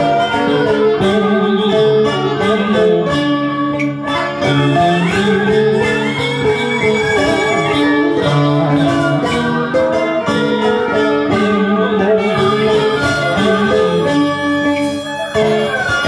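Southern Vietnamese traditional instrumental ensemble (hòa đờn) playing ritual music, with sustained melodic lines that slide between pitches.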